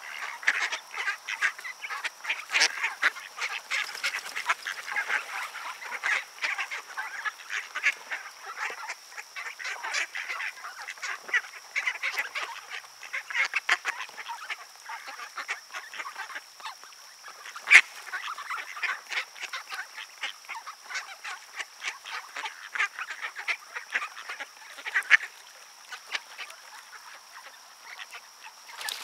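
A flock of mallard ducks calling: a busy, continuous chatter of short quacks, with a couple of louder single calls standing out.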